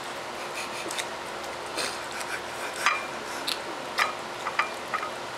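Kitten eating from a food dish: irregular clicks and clinks of the dish, some with a short ring.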